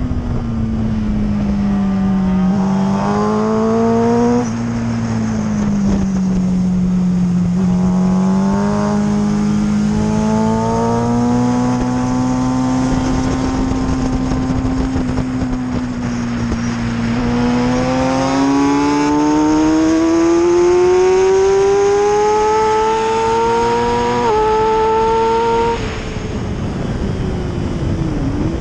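A motorcycle engine heard from a camera mounted on the bike at speed, with wind rush. The note rises and falls as the rider opens and closes the throttle through the corners, with quick steps at gear changes. It climbs steadily under hard acceleration late on, then drops sharply as the throttle is shut near the end.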